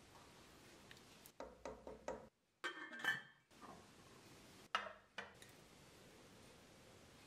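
A few soft knocks, then a stainless steel pot lid clinking down onto a pot with a short metallic ring, and a second clink about two seconds later as the lidded pot is lifted off the hob.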